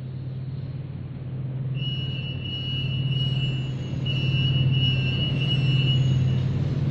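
Flap barrier turnstile's buzzer giving a steady high-pitched electronic beep while a person passes through the lane, starting about two seconds in, breaking off briefly midway and stopping near the end. Under it runs a steady low hum, the loudest sound throughout.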